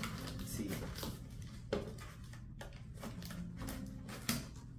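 A small cardboard box being opened by hand: flaps pulled open and cardboard rustling and scraping, with a few short sharp knocks, the loudest near the end.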